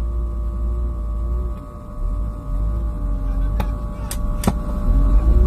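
Fishing boat's engine and deck machinery running with a steady low rumble and a hum that wavers slightly in pitch; three sharp clicks come close together in the second half.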